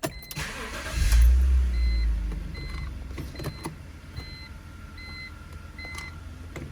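A BMW E46's engine starts about a second in, then settles into a steady idle, while a short electronic warning chime repeats over and over, with a few light clicks from the cabin.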